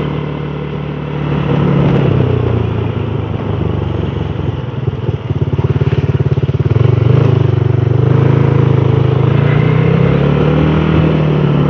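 Motor scooter engine running under way, rising and falling with the throttle through the curves: easing off about a second in, then pulling harder again from about five seconds in.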